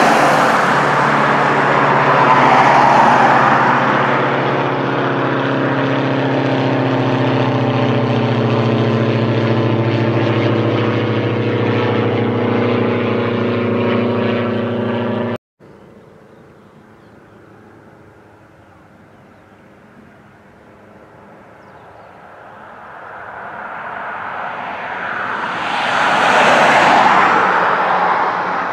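Light twin-engine propeller aircraft flying overhead: a steady engine and propeller drone that cuts off abruptly about halfway through. After it the background is quieter, then a loud rushing noise swells and fades near the end.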